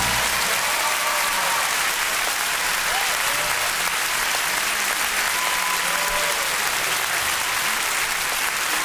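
Large theatre audience applauding steadily after a finished song, the clapping dense and even throughout.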